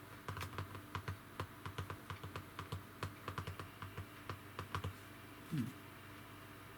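A run of quick, irregular light clicks and taps for about five seconds, then a short sliding tone, up and back down, a little later.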